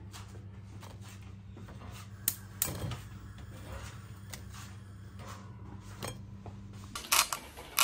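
Light clicks and taps of crunchy garlic bread slices being handled on a plate, a few scattered and a cluster near the end, over a steady low hum.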